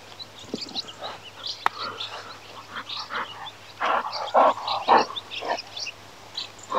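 A dog making a rapid string of short vocal sounds, loudest about four to five seconds in.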